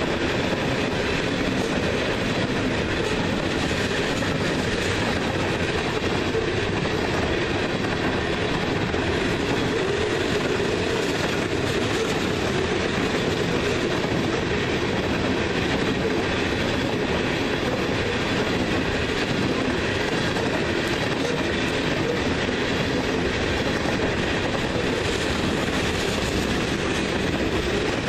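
Freight train of covered hopper cars rolling past close by, its wheels on the rails making a steady, unbroken noise.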